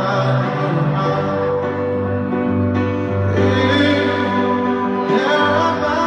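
Live concert music in an arena, recorded from the audience: a singer holding long notes over slow instrumental accompaniment through the PA.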